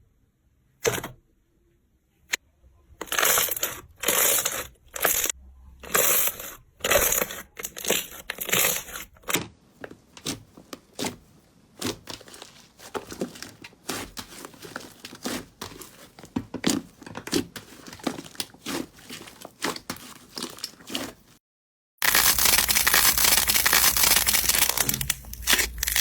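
Slime being squeezed and pressed by hand, making crackling, popping and crunching sounds: first separate squishes, then many small crackles, and near the end a dense, continuous crunch.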